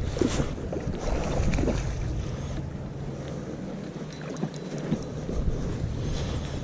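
Wind buffeting the microphone in a steady low rumble, over the running water of a small creek, with a few faint ticks.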